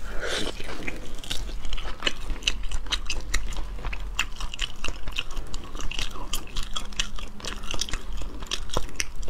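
Close-miked chewing and biting of braised, sauce-soaked meat: an irregular run of short, wet mouth clicks and smacks.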